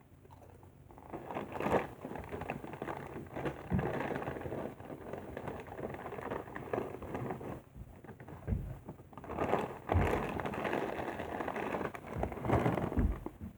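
Close, continuous crunching and crackling of tortilla chips being chewed, with a few louder knocks.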